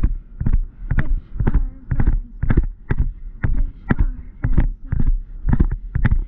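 A horse cantering on grass: thudding hoofbeats and jolts, about two strides a second in an even rhythm, heard over a low rumble of wind on a helmet camera.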